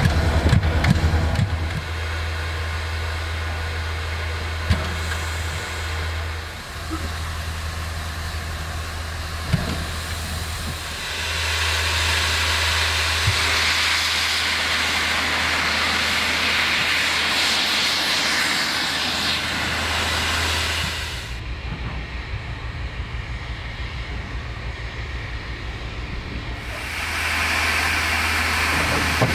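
K-class steam locomotive standing in steam, with a steady hum and a loud hiss of steam from its open cylinder drain cocks that comes in about a third of the way in and stops suddenly some ten seconds later.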